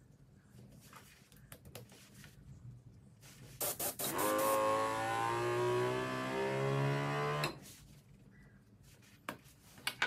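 Small airbrush compressor running while air hisses out of an airbrush connected to its hose, for about three and a half seconds after two sharp clicks. The hiss and a humming whine start together and cut off abruptly, with faint handling clicks before them.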